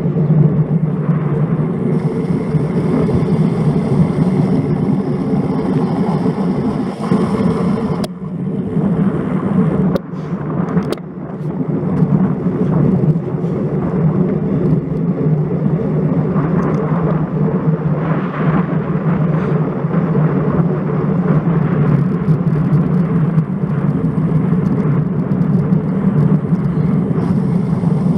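Wind and road noise picked up by a bike-mounted action camera while riding: a steady, loud rumble, with a few sharp knocks around eight and eleven seconds in.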